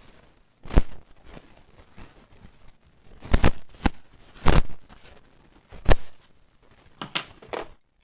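Tools and parts being handled: about seven separate short clicks and knocks at irregular intervals.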